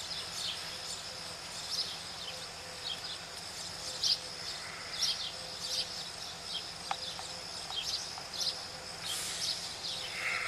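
Outdoor morning ambience: a steady high insect drone with birds chirping in short calls throughout.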